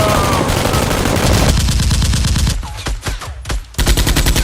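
Rapid machine-gun-style gunfire in a blaster shootout. It breaks off for about a second in the middle, then resumes.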